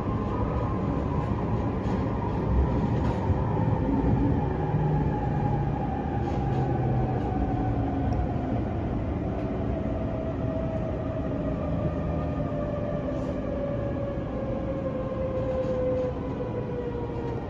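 JR East E531 series electric train heard from inside the car as it slows for a station stop. The traction motors' whine falls steadily in pitch under braking, over the continuous rumble of wheels on rail.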